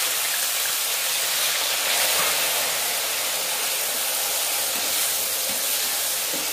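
Chopped tomatoes sizzling in hot oil in a metal kadhai, a loud, steady hiss as they are stirred with a slotted spatula.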